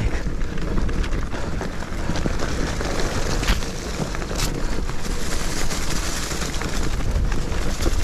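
Wind rushing over the microphone as an electric mountain bike rolls fast down a grassy trail, its tyres rumbling over the ground, with scattered clicks and rattles from the bike over bumps.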